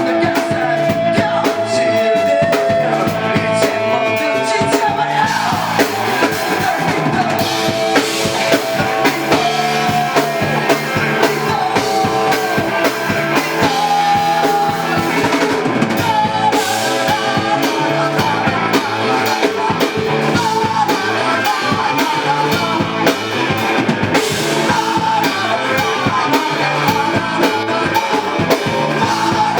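Rock band playing live, the drum kit driving a steady beat under sung vocals.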